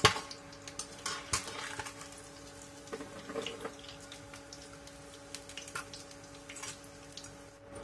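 Metal slotted spoon clinking and scraping against a stainless steel frying pan as a fried tilapia is lifted out of the oil, in scattered light taps, with faint sizzling and dripping of the hot oil. A steady low hum runs underneath.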